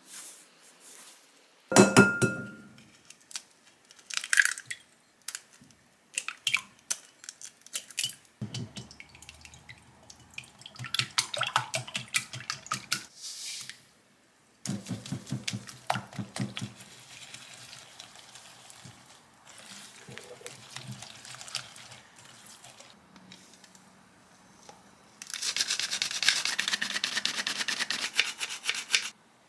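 Kitchen baking sounds: a sharp clink with a short ring about two seconds in, then scattered taps and clicks. A silicone whisk beats eggs, sugar and honey in a glass mixing bowl with rapid ticking. Near the end, a handheld flour sifter shakes flour into the bowl with a steady rustling hiss for about four seconds.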